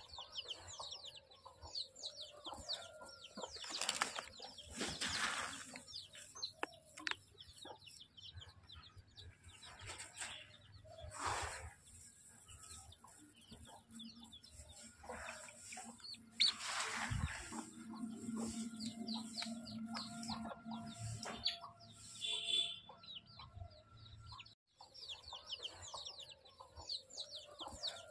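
Banana leaves rustling and crackling as they are lifted and moved off a bed of sprouted paddy seed, in several separate bursts, with the seed being stirred by hand.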